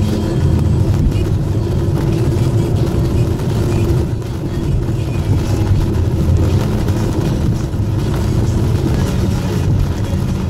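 Steady road noise inside a car at highway speed on a wet road: a constant low rumble of engine and tyres.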